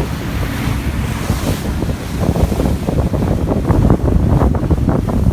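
Small fishing boat speeding over the sea: heavy wind buffeting the microphone over the rush of water past the hull. From about two seconds in come rapid irregular knocks and splashes as the hull slaps the chop.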